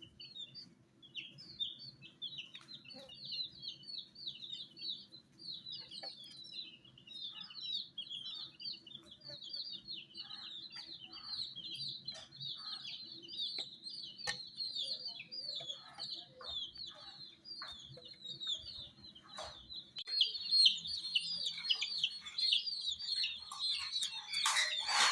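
A group of baby chicks peeping continuously in rapid, overlapping high-pitched chirps, louder and denser for the last few seconds, over a faint low hum.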